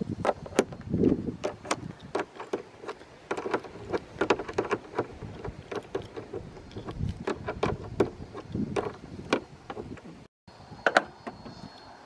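Irregular metallic clicks and knocks of a socket wrench and latch hardware as the bolts of an aftermarket hood latch are tightened on a Jeep Wrangler JL's hood, with a few low bumps of handling. The sound cuts out for a moment near the end.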